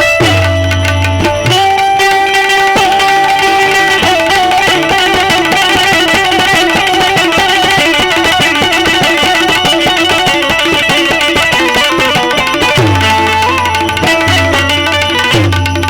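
Instrumental interlude of a live Gujarati bhajan: a hand drum and a melody instrument playing over a deep bass note, which sounds at the start and comes back twice near the end.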